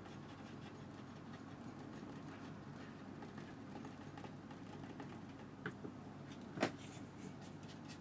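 Faint scraping of the corner of a plastic card on wet watercolour paper as rocks are scraped into the paint, over a steady low hum. There is a small tick between five and six seconds in and one sharp click about six and a half seconds in.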